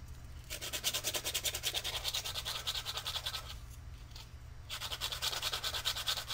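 Sandpaper rubbed quickly back and forth over the edges of a 3D-printed ABS plastic part, roughing the surface so super glue will bond. The strokes come in rapid runs, with a short pause just after the start and another about two-thirds of the way through.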